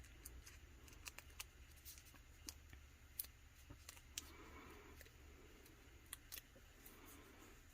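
Near silence with faint, irregular small clicks and ticks from close-up handling of small cut pieces of PET tape.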